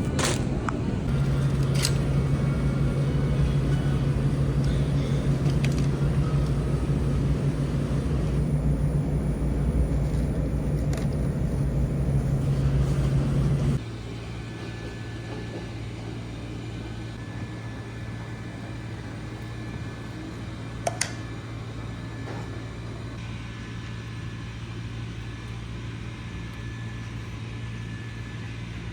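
Steady engine and road rumble inside a car, with a strong low drone. About halfway through it drops suddenly to a quieter, steadier hum.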